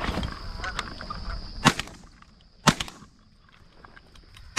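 Two shotgun shots about a second apart, with a third sharp crack near the end.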